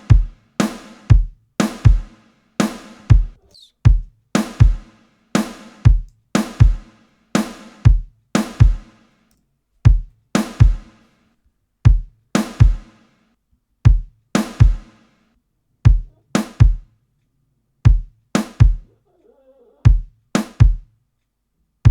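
A looping groove of sampled acoustic drums: kick hits layered with a deep sub thump, and snare hits, repeating about twice a second, with a few gaps in the pattern in the later part.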